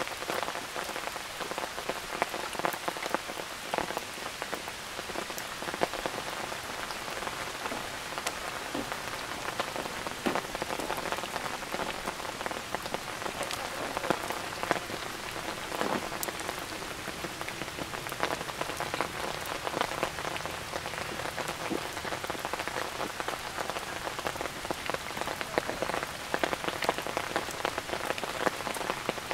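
Steady rain falling, with many separate drops striking close by as short ticks.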